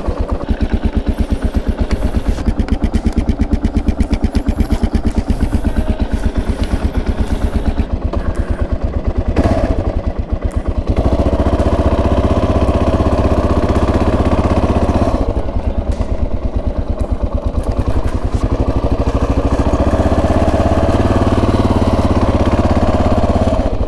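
Kawasaki KLR650's single-cylinder four-stroke engine running at low revs under way, a steady beat of firing pulses. The throttle opens a little about halfway through and again near the end, and the engine note rises and runs more evenly.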